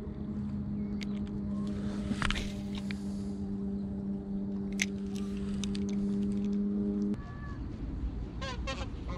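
A steady engine-like hum that cuts off abruptly about seven seconds in, with a few light clicks scattered through it. Near the end a flock of geese flying over gives a short burst of honking.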